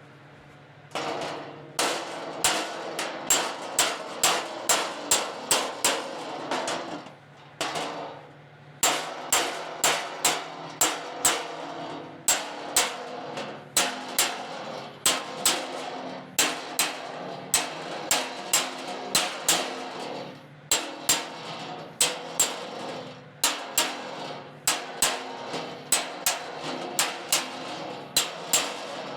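Body hammer striking sheet metal against a dolly on a dented car fender: sharp ringing metallic taps, about two or three a second, in runs with short pauses. The blows work a flattened body-line ridge back out.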